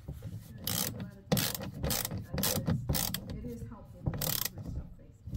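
Hand ratchet clicking in a series of short bursts as it tightens the bolt on a battery's negative terminal, clamping the cable lug down.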